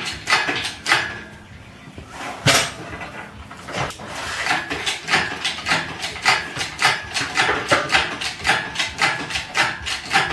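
Engine stand turning the engine and transmission over, giving off metallic clicks and squeaks. A few clicks and a louder knock come first, then an even run of about three clicks a second from about four seconds in.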